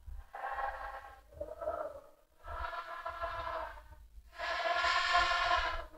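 Audience singing a sholawat line back in unison, unaccompanied, heard fainter than the lead voice, as four held phrases with short breaks between them.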